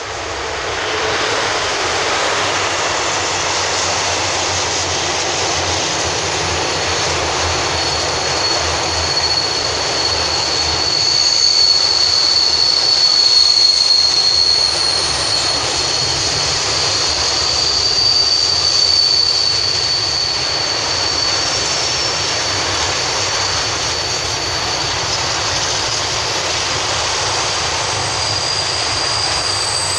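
Long freight train of open wagons, hauled by an ET22 electric locomotive, rolling past with a steady rumble of wheels on rail. A thin, high squeal runs over it from about seven seconds in.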